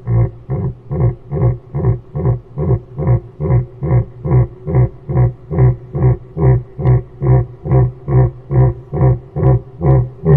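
A bird giving a long, steady run of low, pitched calls, about two and a half a second, evenly spaced and even in loudness.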